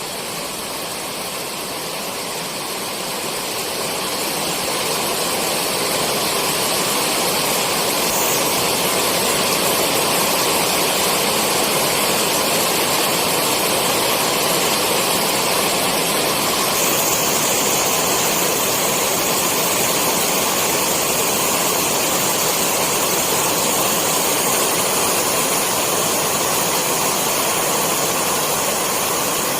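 Steady rainfall, a dense even hiss that swells over the first few seconds and then holds.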